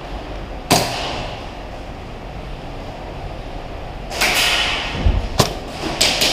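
A single sharp crack about a second in, then a burst of rustling and several sharp knocks near the end.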